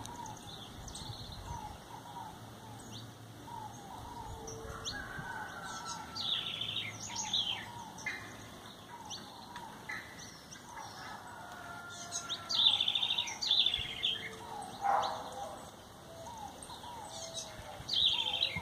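Several small wild songbirds chirping and singing over one another: short high chirps and quick falling trills, with softer repeated lower notes underneath, busiest about two-thirds of the way through and again near the end.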